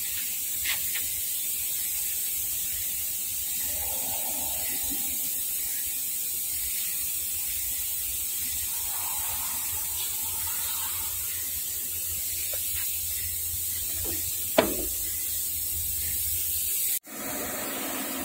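Steady background hiss with a faint low hum, broken by one sharp click about three-quarters of the way through.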